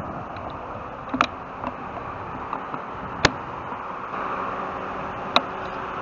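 Steady road traffic noise, with three sharp clicks about two seconds apart.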